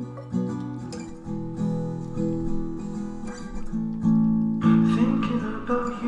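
Background music: acoustic guitar picking plucked notes, turning to a fuller strum near the end.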